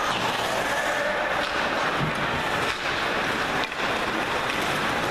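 Ice hockey rink ambience during play: a steady wash of noise, with a few faint knocks about halfway through.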